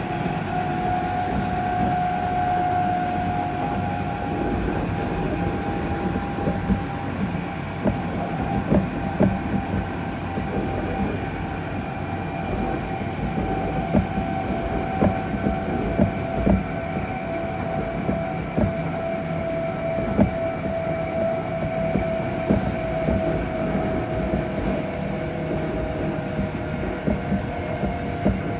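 Electric train's traction motor whining abnormally while running: a strong steady whine that drifts slowly lower in pitch. Rail-joint clicks sound over it, coming more often in the second half.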